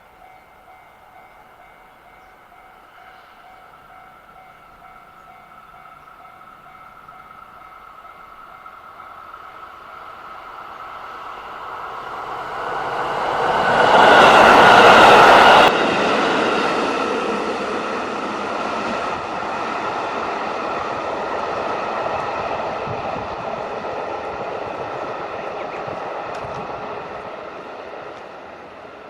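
A train approaching across a steel railway bridge, faint steady rail tones building into a rising rumble. It is loudest for about two seconds halfway through as the front passes, then drops sharply. The wheels and cars keep up a steady run across the bridge that fades near the end.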